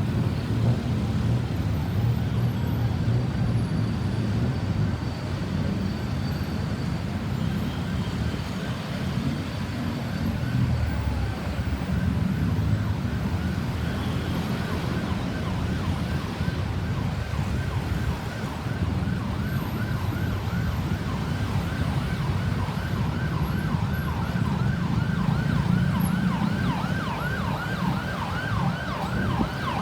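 Ambulance siren sounding a fast, repeating up-and-down yelp that comes in about a third of the way through and grows louder, over steady road traffic rumble.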